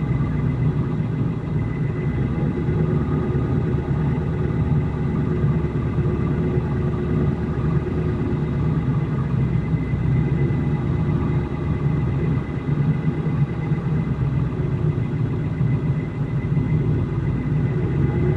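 A vehicle engine running steadily with an even hum, holding one speed throughout with no revving.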